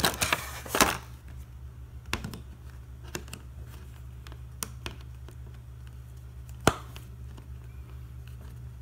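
Clear plastic box insert crinkling and crackling as it is handled, then occasional light clicks with one sharper click about two-thirds of the way through, over a steady low hum.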